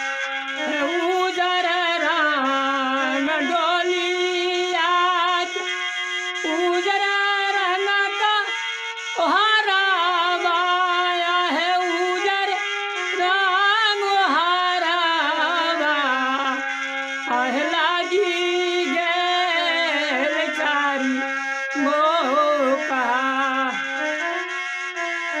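Music from a samdaun, a folk song of bridal farewell: a slow melodic line with wavering, ornamented notes over a steady low held note.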